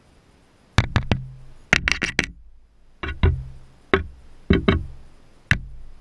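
Juvenile gull pecking at a GoPro camera: sharp taps of its bill on the camera housing, about a dozen in quick clusters of two to four, starting about a second in, each leaving a brief low ring.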